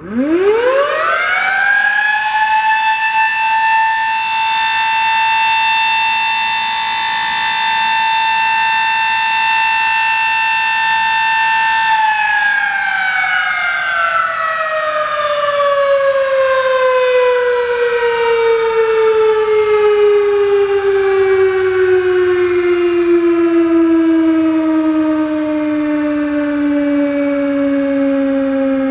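Sterling M-10 electromechanical outdoor warning siren winding up quickly to a steady high wail, holding it for about ten seconds, then winding down in a long, slowly falling tone as the rotor coasts after the motor is switched off during a test.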